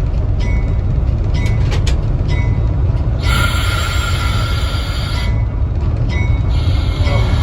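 A train of railway car and locomotive rolling slowly on the rails with a steady low rumble and light ticks about once a second. A high-pitched squeal comes in about three seconds in, lasts some two seconds, and starts again near the end.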